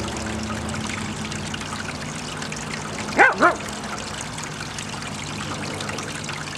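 Water from a hose trickling steadily down an aluminium gold sluice box, with a steady low hum underneath. About three seconds in, a dog gives two short barks, the loudest sounds.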